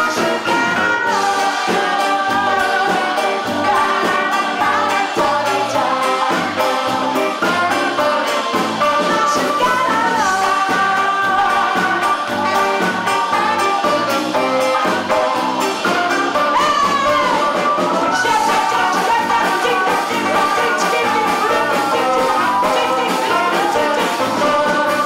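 Live jazz band music with a melodic lead line over a steady beat, an instrumental stretch between the sung verses of the song.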